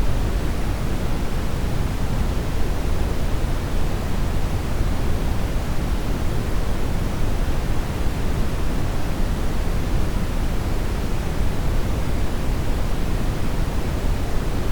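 Steady synthesized brown noise: a deep, even rumbling hiss with most of its energy in the bass and little in the highs, unchanging throughout.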